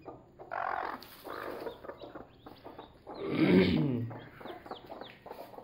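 Newly hatched chicks peeping in short, high, falling chirps, with the broody mother hen giving a louder, lower cluck about three and a half seconds in.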